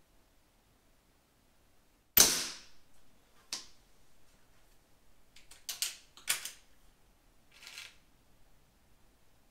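Weihrauch HW97 spring-piston air rifle fired once with its moderator fitted: a single sharp crack with a short decay about two seconds in. A few sharper, quieter metallic clicks follow as the rifle is cocked and reloaded.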